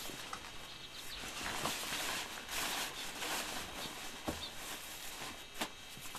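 Tent fabric of a folding camper trailer rustling as it is pushed and tucked down, loudest in the middle, with a few light knocks.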